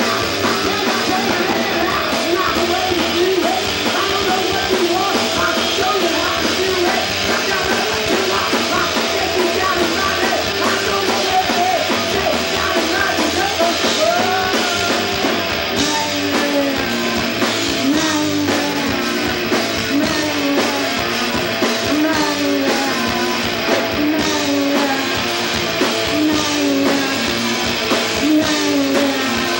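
Live rock band playing loudly: electric guitar, electric bass and drums, with a pitched lead line that slides up and down over them, most clearly in the second half.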